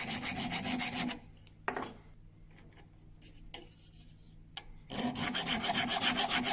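A metal file rasping across a steel screw clamped in a vise in quick, even strokes, cutting grooves so that epoxy will grip the thread. The filing stops about a second in, a couple of faint knocks follow, and it starts again near the end.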